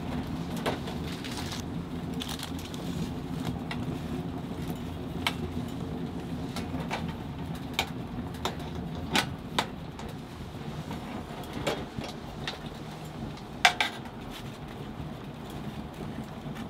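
Wood fire crackling inside a Winnerwell Woodlander wood stove, with irregular sharp pops and one louder snap a little before the end, over a steady low hum.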